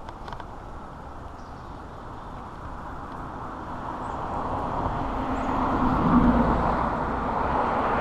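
A road vehicle passing by. Its tyre and engine noise grows louder through the second half and is loudest about six seconds in.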